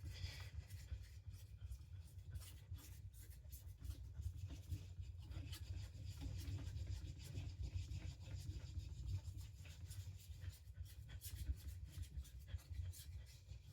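Knife blade drawn very lightly across a wet Coticule/Pyrenees combination whetstone, with only the knife's own weight on it: faint, repeated scraping strokes during the last light finishing passes.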